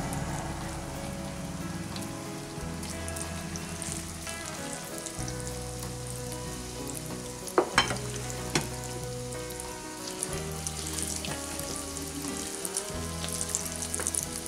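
Egg-and-cauliflower pakoras deep-frying in hot refined oil in a kadai, with a steady sizzle. A few sharp clicks come about eight seconds in.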